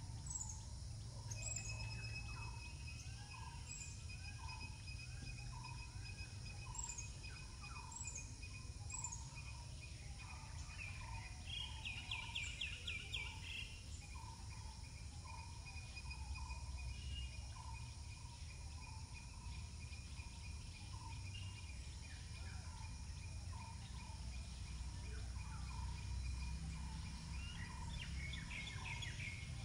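Outdoor ambience of birds calling: a short note repeated about every half second, with a quick trill about halfway through and again near the end. A steady thin high tone and a low rumble run underneath.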